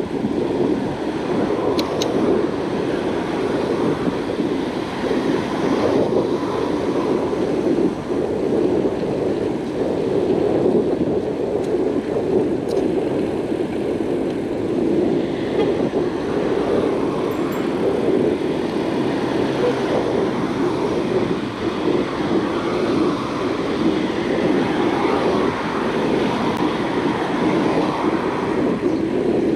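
Steady rushing wind noise on the microphone of a bicycle being ridden, mixed with traffic noise from the road alongside.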